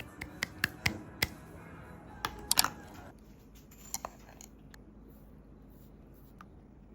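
A run of sharp clicks and light knocks, about eight in the first three seconds, and two more about four seconds in, over faint background music.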